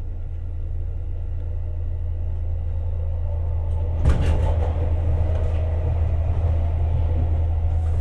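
Kintetsu 1026 series electric train heard from inside the cab, running and gathering speed: a steady low rumble that grows slowly louder, with sharp wheel clacks over the track from about halfway through.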